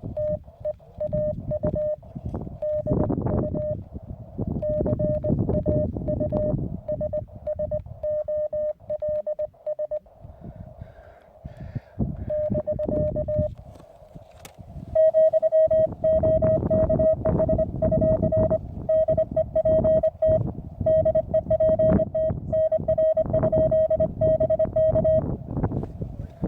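Morse code (CW) tone from a Weber MTR QRP transceiver on the 20 m band, a single steady pitch keyed on and off in dots and dashes. It is fainter at first; a little past halfway a louder, faster string of characters begins. A rushing noise runs underneath.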